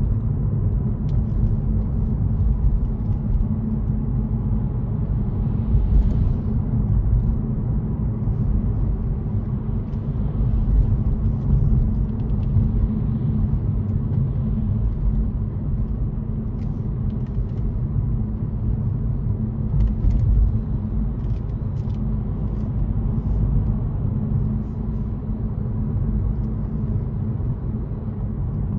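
Car driving along a road: a steady low rumble of road and engine noise, with a few faint ticks here and there.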